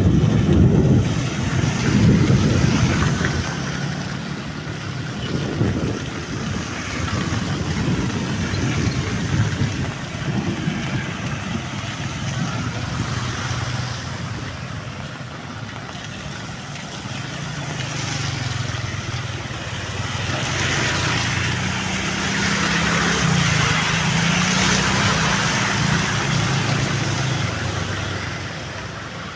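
Heavy rain falling, a steady hiss, with low buffeting wind noise on the microphone in the first few seconds. In the second half an engine hum rises and falls in pitch, then fades near the end.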